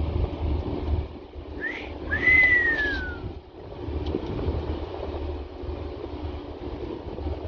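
A human wolf whistle about two seconds in: a short rising swoop followed by a longer falling note. Under it runs the steady low rumble of the moving boat, with wind on the microphone.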